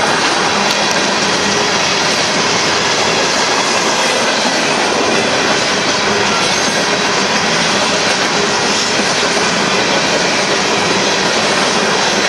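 Union Pacific freight train of covered hopper cars rolling past, its steel wheels on the rails making a loud, steady noise.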